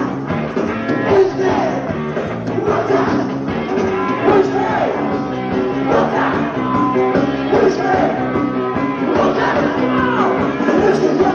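Rock band playing live: steady, loud electric rock with notes that slide up and down in pitch over a continuous bass and drum backing.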